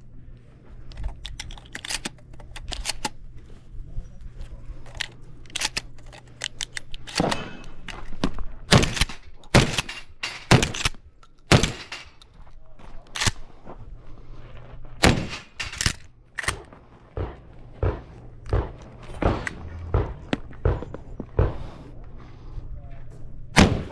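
Shotgun shots at a shooting range, dozens of sharp reports in quick, irregular strings, the loudest coming from about seven seconds in, with fainter clicks and knocks between them.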